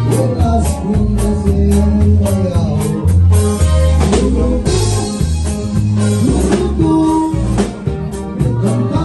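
Live norteño band playing, with accordion, saxophone, electric bass and drum kit under sung vocals.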